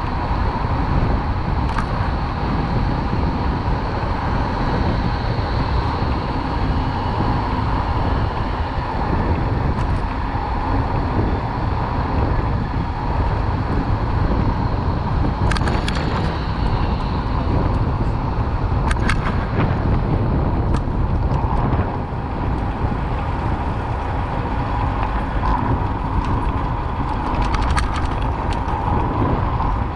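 Steady road noise heard from a bicycle riding along a busy city street: a constant rumble of tyres and passing traffic, with a few sharp clicks or rattles scattered through.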